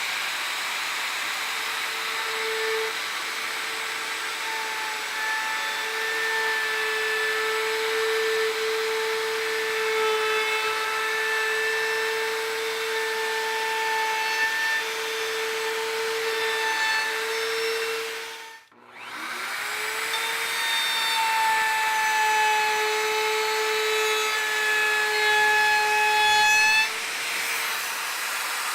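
Bosch handheld router with a round-over bit running at speed and cutting along the curved edges of a hardwood push stick, a steady high motor whine under a rough cutting noise. About two-thirds through it stops briefly, then spins back up with a rising whine and carries on cutting.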